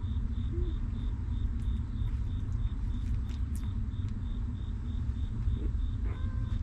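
A steady low rumble with an insect chirping in an even high pulse about four times a second. A faint short squeak comes near the end.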